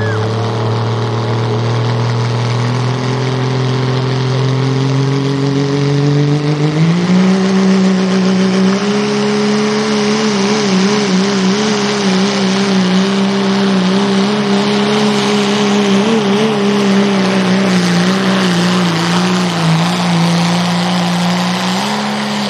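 Dodge Ram pickup's turbocharged Cummins diesel at full throttle, pulling a weight-transfer sled. Its revs climb steadily, jump higher about seven seconds in and hold there, wavering, then fall away sharply right at the end.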